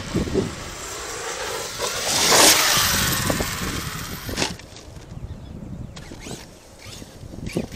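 Arrma Kraton 8S RC truck running, its brushless electric motor whining up and down, with a loud hissing rush about two seconds in. After about four and a half seconds it drops quieter, with a couple of sharp knocks.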